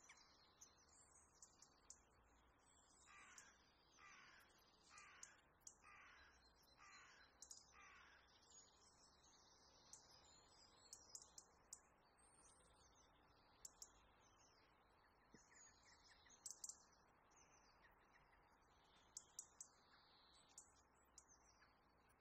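Very faint bird calls in near silence. A harsh, falling call repeats six times, about once a second, in the first half, and short high chirps come and go throughout.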